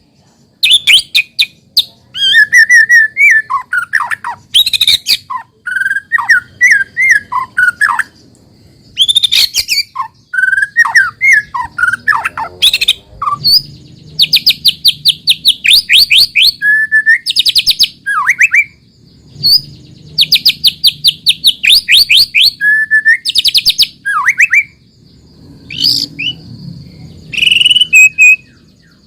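White-rumped shama (murai batu) singing a loud, varied song. Clear whistled notes that glide up and down alternate with fast rattling trills, in phrases broken by short pauses.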